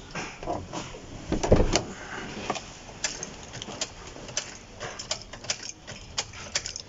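Small clicks and knocks from the ignition key and cab being worked as a Toyota Land Cruiser fails to start, with one heavier knock about a second and a half in. The engine does not crank, a sign of no power reaching the starter.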